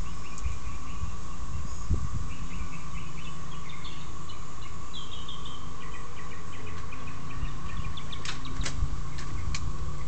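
Cicada chorus: a steady, high constant drone of many cicadas calling at once. Birds chirp over it in the first half, a low steady motor rumble runs underneath, and a few sharp clicks come near the end.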